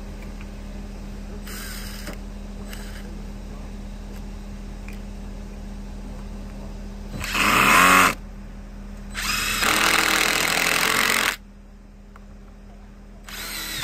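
Cordless drill run in short bursts: two faint brief runs, then a loud run about seven seconds in that spins up and winds down, a longer steady run a second later, and a short one at the end.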